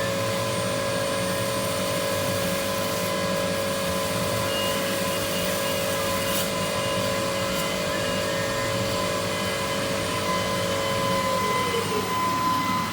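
CNC stone lathe running with a steady machine whine over a constant noisy hum; about eleven seconds in the whine slides down in pitch as the machine winds down.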